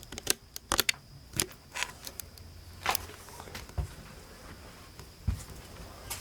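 Footsteps on a debris-strewn floor: irregular crunches and knocks, about eight spread across a few seconds.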